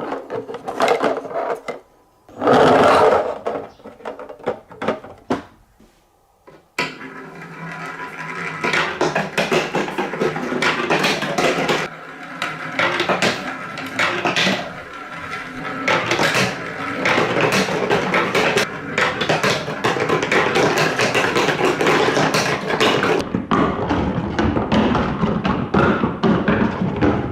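Marbles rolling and clattering down a TrixTrack marble run's plastic wave-slope track, a dense run of rapid clicks and taps. It comes in two short bursts at first, then from about seven seconds in becomes a steady clatter of many balls at once.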